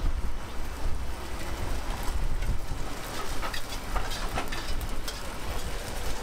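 Gas wok burner running with a steady low rumble, with several short scrapes and clicks of a metal spatula against the wok in the middle as an omelette is folded over noodles.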